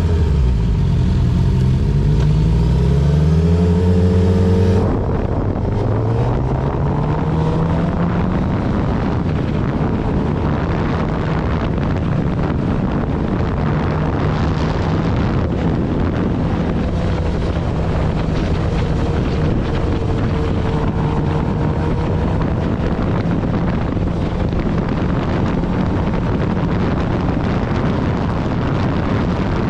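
Sportbike engine heard from the rider's seat, its pitch rising and falling as it pulls away through the gears, then after a cut about five seconds in, the engine holding a steady note at highway speed under heavy wind rush.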